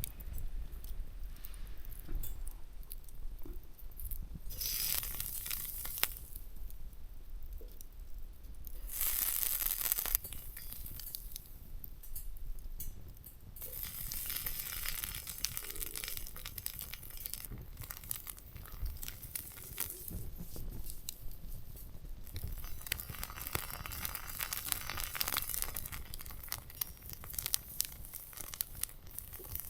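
Sausage frying in a pan over a small twig-burning camp stove: sizzling and crackling that swells and dies down several times.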